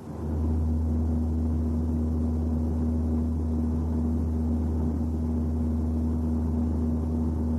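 A steady low rumbling drone with a constant hum over it, starting abruptly and holding level without change.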